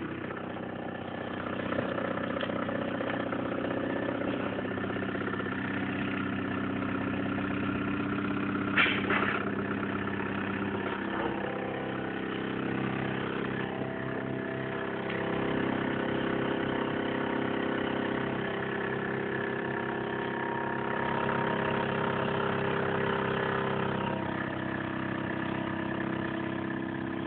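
Mamod Minor 2 toy steam engine running steadily, its pitch shifting a few times as its speed changes. A brief sharp noise stands out about nine seconds in.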